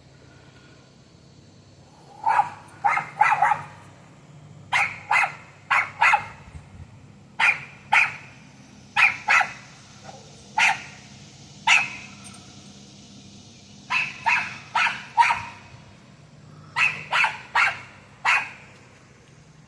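A dog barking repeatedly, in short runs of two to four sharp barks with pauses between, starting about two seconds in.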